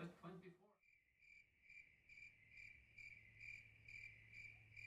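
A cricket chirping steadily, about two short chirps a second, starting suddenly about a second in after a moment of TV speech.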